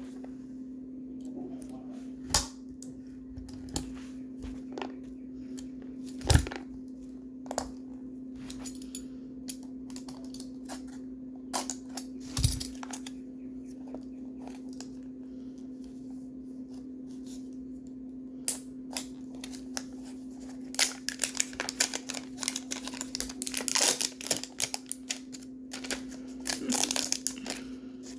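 Toy packaging being handled and opened: scattered clicks and taps at first, then from about two-thirds of the way in a long stretch of packaging crinkling and tearing. A steady low hum runs underneath.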